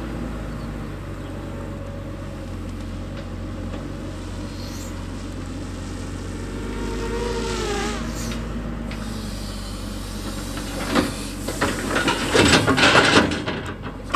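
A steady engine drone runs throughout. From about eleven seconds in, loud irregular clattering and knocking comes over it.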